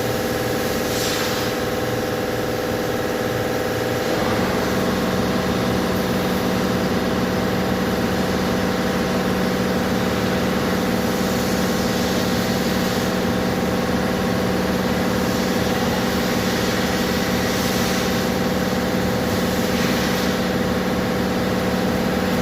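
Car engine idling steadily, its note shifting and getting slightly louder about four seconds in.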